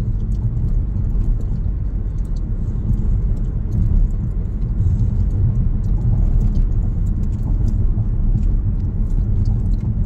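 Steady low rumble of road and engine noise heard from inside a moving car's cabin, with faint small clicks and rattles now and then.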